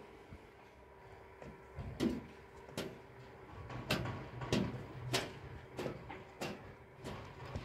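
A cloth swiped and slapped against a tractor's bodywork while it is being cleaned: a series of short brushing strokes, roughly one every half second to a second, starting about two seconds in. The tractor's engine is not running.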